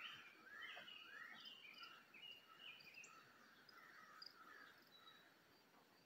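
Faint wild birdsong from the woods: a run of quick rising notes in the first couple of seconds, then scattered short chirps that thin out in the second half.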